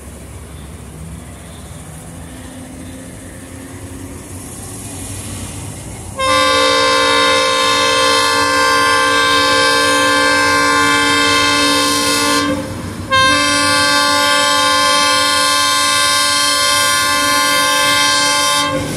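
Diesel locomotive approaching with a low rumble that slowly grows, then its multi-tone air horn sounds two long blasts of about six seconds each, starting about six seconds in. A third blast begins right at the end.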